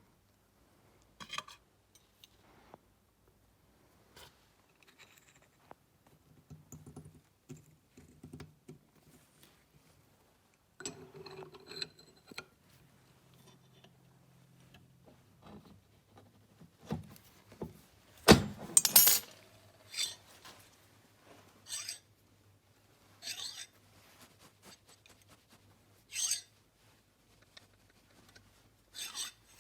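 Small steel parts of a bench vise's handle and screw shaft being handled and fitted: scattered light metallic clicks and clinks, with one sharp loud knock about halfway through and a few more clinks after it.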